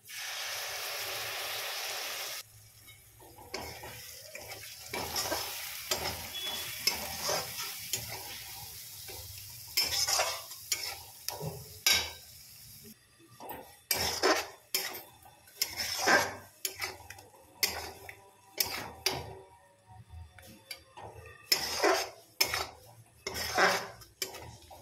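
Spice paste hitting hot oil in a metal kadai, a steady sizzle that stops abruptly about two seconds in. Then the masala frying with a softer sizzle while a steel spatula stirs and scrapes it against the pan. In the second half the sizzle fades and the spatula's scrapes stand out as separate sharp strokes, about one or two a second.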